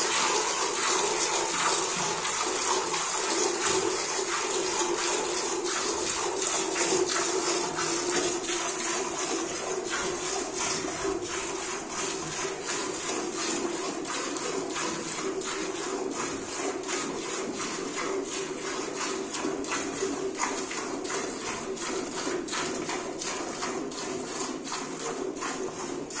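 Cow being milked by hand into a steel bucket: milk squirts strike the metal pail and the milk already in it in a steady, regular rhythm of hissing spurts.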